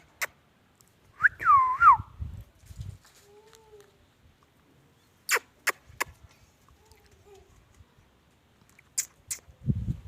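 Pet parrot giving one short swooping whistle about a second in, gliding up and then down. Several sharp clicks are scattered through the rest, with a couple of faint, soft, short calls.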